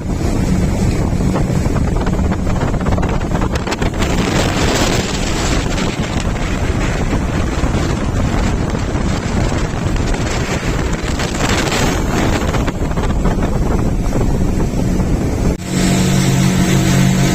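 Speedboat engine running at speed, a steady drone under the rush of water and wind buffeting the microphone. About fifteen and a half seconds in the sound cuts abruptly to a louder, steadier engine hum with less wind.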